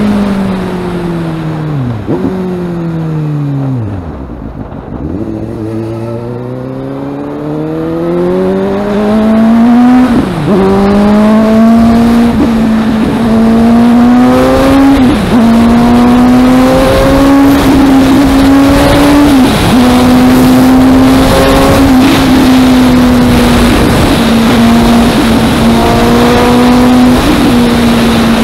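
Suzuki GSX-S750's inline-four engine through a Yoshimura R-11 exhaust, heard from the riding seat. The engine note falls as the bike slows in the first few seconds, climbs steadily as it accelerates from about five seconds in, then holds a steady cruising note with a couple of brief dips at gear changes.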